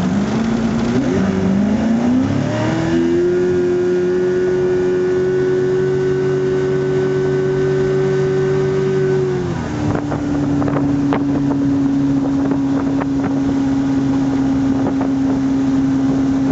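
Johnson 115 V4 two-stroke outboard at a full-throttle launch. The revs climb quickly over the first three seconds, hold high and steady, then ease down to a lower steady speed about ten seconds in. The owner puts the way it revs on launch down to prop slip.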